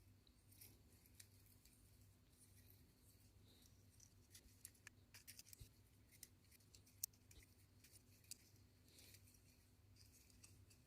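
Faint handling noise of small parts being fitted together by hand: scattered light clicks and scratches, the sharpest click about seven seconds in, over a steady low hum.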